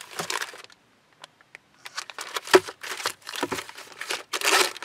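Plastic-wrapped document pack and papers crinkling and rustling as a hand shifts them about in a car's glove box, in irregular bursts with a short lull near the start.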